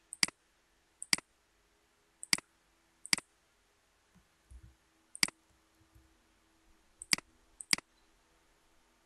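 Computer mouse clicking, about seven sharp clicks at uneven intervals, several heard as a quick double tick of button press and release.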